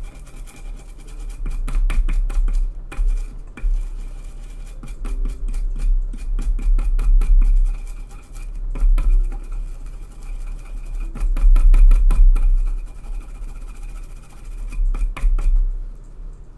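Brush scrubbing and tool scraping on a PS5 controller's circuit board as it is cleaned after soldering: a run of quick clicks and scratches with low thumps coming in waves.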